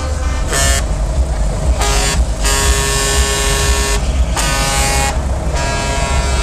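Truck air horn sounding in four blasts: a short toot, then a longer blast of about a second and a half, then a shorter one. A steady low engine rumble runs underneath.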